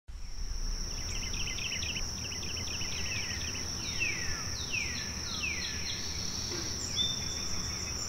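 Forest ambience: an insect's steady high-pitched trill throughout, with a bird calling over it. The bird gives quick repeated chirps, then about halfway a run of four downward-sweeping calls, and a short high whistle near the end.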